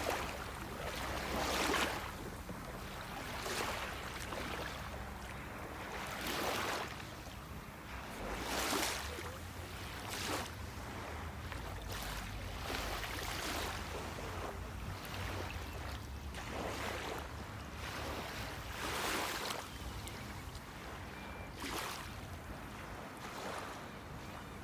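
Kayak paddles splashing in the water with each stroke, about every two seconds, over a steady low rumble.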